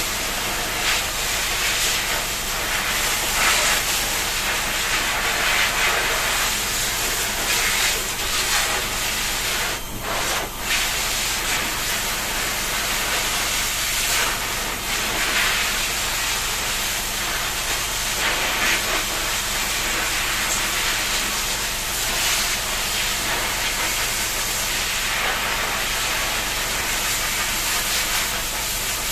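Water spraying in a steady, continuous hiss, as from a shower spray, with two brief breaks about ten seconds in.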